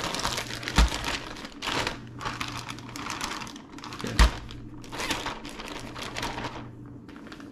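Plastic Hefty zipper bag holding catfish pieces and breadcrumbs being shaken and crinkled, with irregular rustling and two dull thumps, one about a second in and one about four seconds in. It goes quieter near the end.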